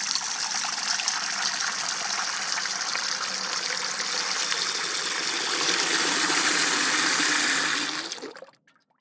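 Water running steadily from an outdoor faucet, a full splashing hiss that grows a little louder about halfway through, then fades out quickly near the end.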